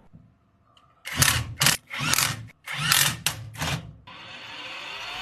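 A power drill or driver in several short bursts, fastening the drive motor. About four seconds in, the electric tricycle's drive motor starts running through its newly fitted differential as a steady, slowly rising whir that sounds normal.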